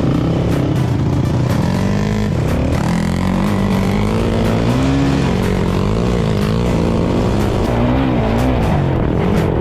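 ATV (quad) engine running under riding load, its pitch rising and falling over and over as the throttle is worked.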